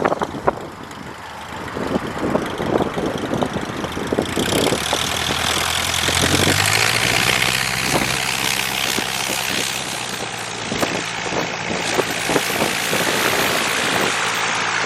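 Cessna 120's light-aircraft piston engine and propeller running, with a steady low hum and scattered knocks. About four seconds in, a strong rush of air noise comes up as the engine speeds up slightly.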